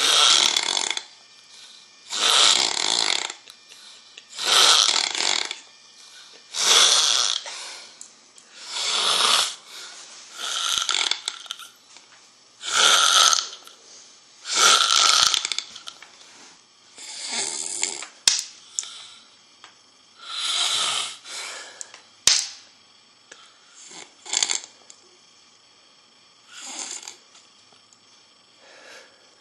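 A man snoring loudly, one snore roughly every two seconds, each lasting about a second. The snores grow weaker and farther apart near the end, and two short sharp clicks fall in between.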